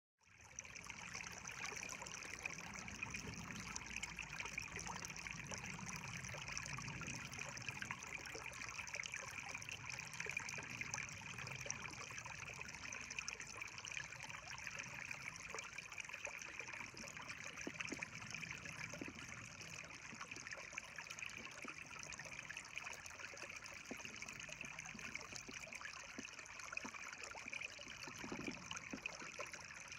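Creek water trickling and flowing over rocks, a faint, steady rushing.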